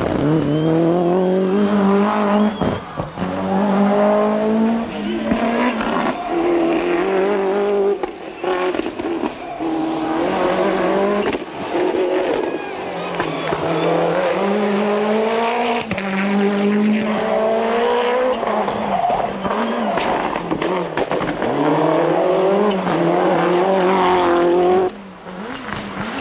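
Toyota Celica GT-Four ST185 rally car's turbocharged 2.0-litre four-cylinder engine at full throttle, its pitch climbing hard and then falling back at each gear change, again and again. The sound dips briefly near the end.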